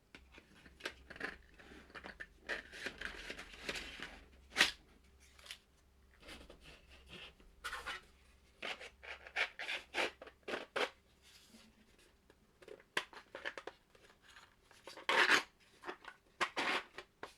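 Pieces of a 3D-printed plastic board-game insert and its cardboard tiles being handled: irregular clicks and knocks, with a few longer scraping and rubbing stretches as trays are lifted out and slid back.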